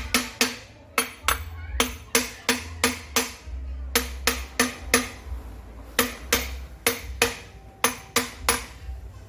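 Hammer striking metal in a long run of sharp blows, about two to three a second in short runs, each with a brief metallic ring.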